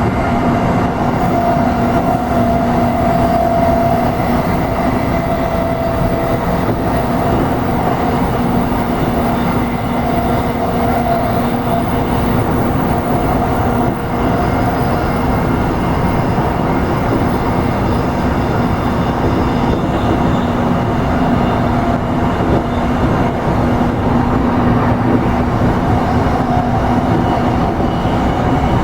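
JR East E233 series electric commuter train running steadily at speed, heard from inside the car: a continuous rumble of wheels on rail with a steady hum under it.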